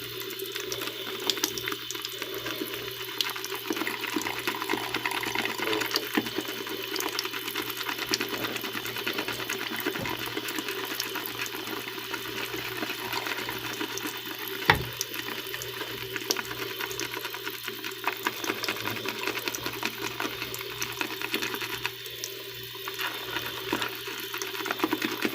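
Synthetic-knot shaving brush working wet shaving-soap lather: a continuous wet swishing with fine crackling of bubbles as the lather is built up with a touch of added water.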